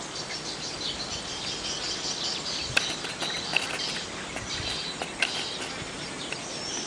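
Field ambience of insects and birds chirping over a steady background hiss, with a few short sharp clicks.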